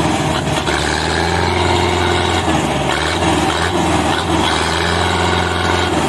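Belarus tractor's diesel engine running steadily under load, hauling a heavily loaded trolley.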